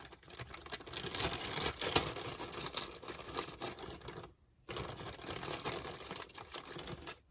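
Small metal hardware (washers and bolts from a strut rod kit) clinking and rattling as it is handled, a dense run of irregular clicks that breaks off briefly a little past four seconds, then lighter clinking.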